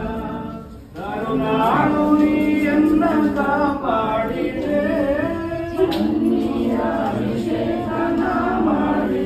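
Devotional song: voices singing a melody with musical accompaniment, pausing briefly about a second in.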